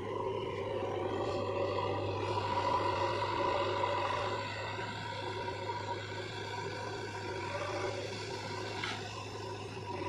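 JCB 3DX backhoe loader's diesel engine running under load, revving up about two seconds in and easing back to a steady run after about four seconds.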